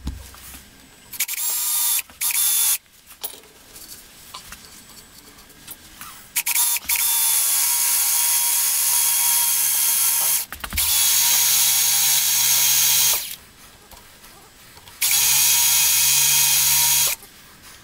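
Cordless drill drilling holes into the metal of a lathe, running in four bursts of a few seconds each with a steady motor whine and stopping between them.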